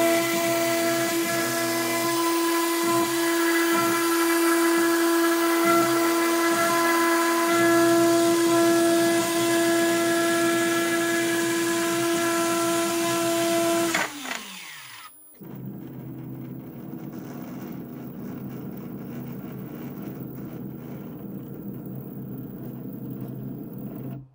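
Spindle of a mostly 3D-printed CNC router (MPCNC) running with a steady whine as it mills a pattern into a board. About 14 seconds in the spindle is switched off and spins down in a quickly falling whine. A quieter steady low hum from the machine goes on after it.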